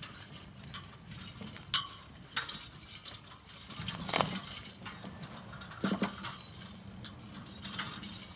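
Harness and chain gear of a working team of draft horses clinking, with a few sharp knocks and clinks, the loudest about four seconds in, over a low outdoor rumble.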